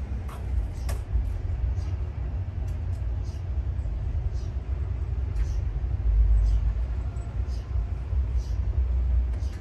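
Outdoor street ambience: a steady low rumble of traffic, with faint light ticks every second or so.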